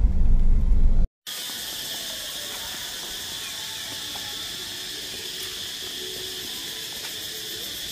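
Low road rumble inside a moving car's cabin for about the first second. It cuts off abruptly and gives way to a steady, even high-pitched hiss of outdoor ambience among trees, with faint distant voices.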